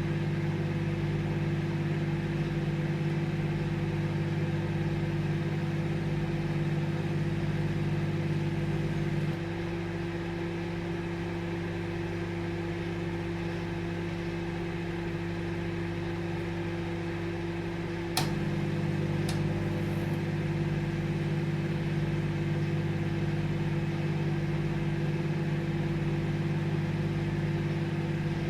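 Microwave oven running with a steady hum. About nine seconds in the deeper part of the hum drops away, and about eighteen seconds in it comes back with a sharp click, followed by a second click a second later.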